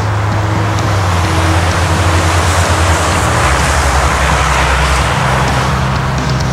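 An intercity coach passing on a highway. Its engine and tyre noise swells to a peak about two to four seconds in, then fades, over a steady low drone.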